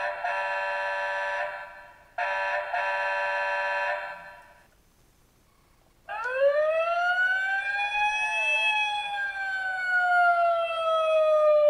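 Electronic sound module of a battery-powered Tonka toy fire engine played through its small speaker: two steady electronic horn-like blasts, then a siren wail that rises in pitch and then slowly falls.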